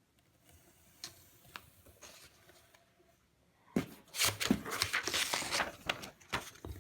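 Paper handling: a few faint taps and rustles at first, then loud, irregular rustling and crinkling from about four seconds in as leaflets are shuffled.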